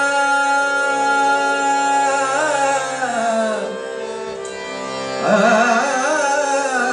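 A man singing over a harmonium, its reeds holding steady sustained notes under his wavering voice. About four seconds in the voice drops out for about a second while the harmonium carries on, then the singing returns.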